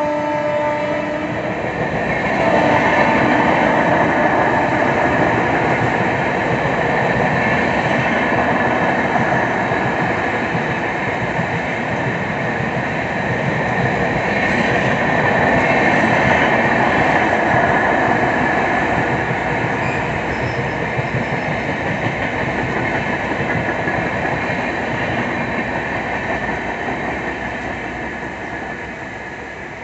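Passenger coaches of an express train rolling past at speed: a steady rush of wheels on rail that swells and eases and fades near the end as the train goes by. The electric locomotive's horn cuts off about a second in.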